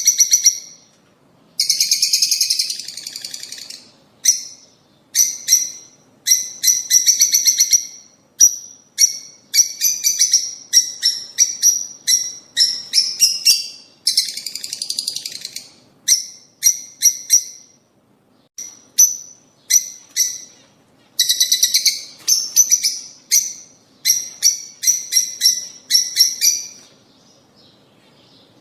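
Lovebirds chattering: shrill, rapid chirps in trains of about a second each, one after another with short pauses between.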